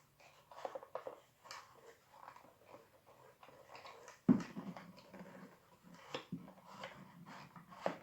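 Handling noise as a wooden melodeon keyboard is wiggled down over the instrument's buttons: scattered light clicks and scrapes of wood on wood and metal, with one louder knock about four seconds in.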